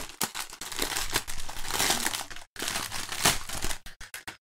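Small plastic bags of diamond-painting drills crinkling as they are handled, with a brief pause about halfway and a few sharp clicks near the end.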